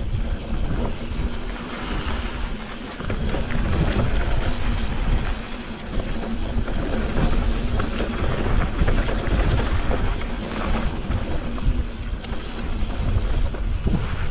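Mountain bike descending a dirt trail: wind buffeting the camera microphone over a heavy, unsteady rumble, with scattered rattles and knocks from the bike and tyres over rough ground.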